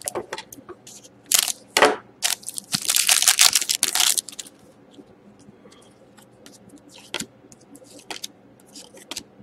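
Foil wrapper of a hockey card pack crinkling as it is torn open, loudest in a long crinkling tear about three seconds in. After that, quieter rustling and soft clicks as the cards are slid out and fanned through by hand.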